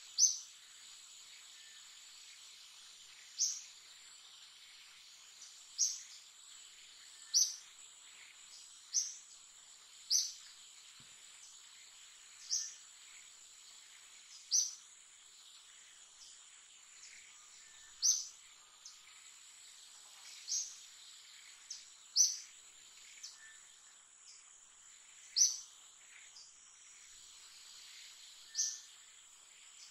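Steady high-pitched drone of insects in the trees, with a short, sharp chirping call repeating over a dozen times, every one to three seconds.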